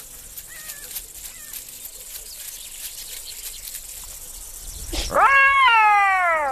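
A wild animal's loud call about five seconds in: it rises sharply, then slides down in pitch for about a second and a half. A few faint short, high chirps come before it.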